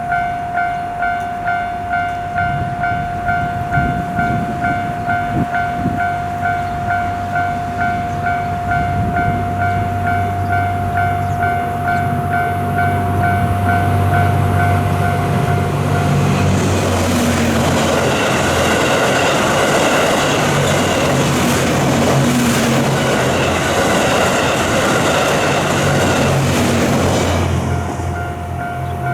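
Japanese level crossing warning bell ringing its steady, repeated kan-kan tone while a train's low rumble builds. About halfway through the train passes close by, and its loud running noise drowns the bell for roughly ten seconds; the bell is heard again just before the end.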